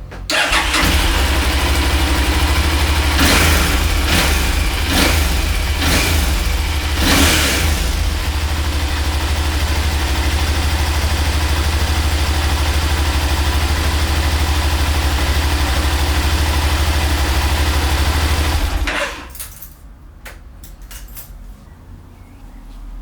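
Yamaha TDM 900's parallel-twin engine starting, revved about five times in quick succession, then idling steadily before being switched off a few seconds before the end. It is run briefly after an oil change to circulate fresh oil through the dry-sump system before the level is topped off.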